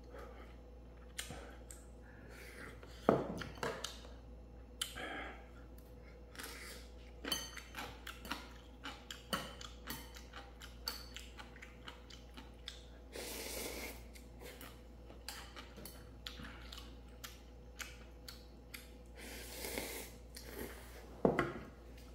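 A person eating ramen: chewing, with many short clicks of utensils against the bowl scattered throughout.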